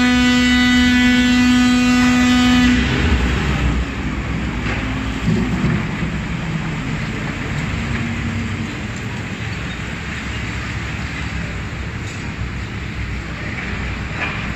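Heavy demolition-site machinery: the diesel engines of excavators and dumpers run under a dense, steady rumble, with a few short knocks. For about the first three seconds a loud, steady pitched tone sits over it and then cuts off suddenly.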